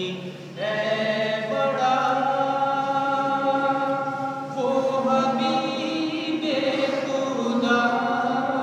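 A man singing an Urdu naat unaccompanied, in long held notes that slide from pitch to pitch, with a short pause for breath just after the start.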